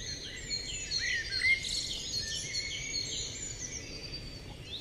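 Small birds chirping and twittering, many short high calls and whistles overlapping, busiest in the first couple of seconds and thinning toward the end, over a faint steady hiss.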